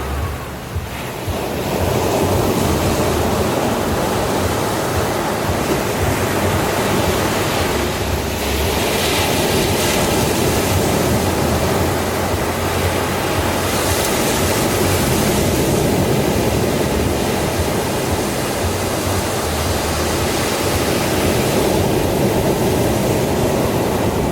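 Ocean surf washing on a beach: a continuous rushing hiss of breaking waves, briefly quieter at the very start, with hissier surges about a third and about halfway through.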